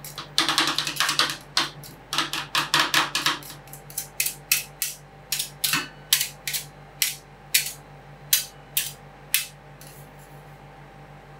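Metal spatulas striking a steel ice cream cold plate. A fast clatter comes first, then slower single strikes about two a second that stop near the end. A steady low hum runs underneath.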